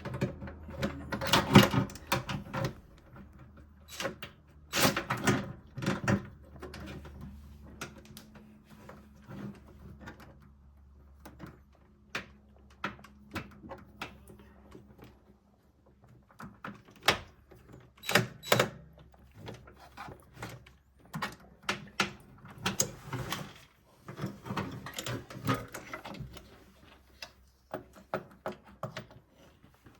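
Irregular knocks, clicks and rattles of hands and tools working on an opened washing machine's back and motor, the loudest clusters a few seconds apart. A faint low hum lies under the first several seconds.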